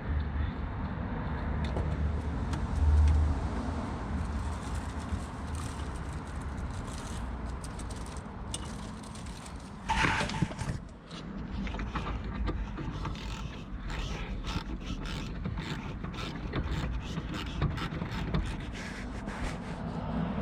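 Hand tools at work on a car's rear brake caliper: a socket ratchet clicking, with metal clinks and scrapes scattered throughout and a sharper knock about halfway through, over a low steady rumble.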